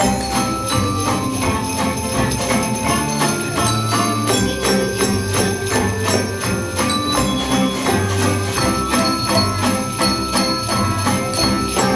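Music with jingle bells shaking on a steady beat over held melody and bass notes.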